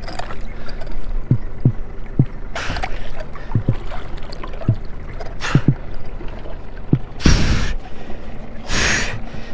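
Heavy breathing and gasps of an angler straining against a big bull redfish, four or five hard breaths, with short low knocks scattered among them.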